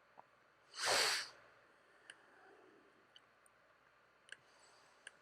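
A short breath or sigh into the microphone about a second in, then a few faint, widely spaced computer mouse clicks.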